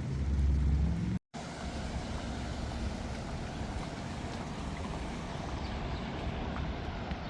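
A low rumble for about the first second, cut off abruptly, then a steady rushing noise of flowing floodwater.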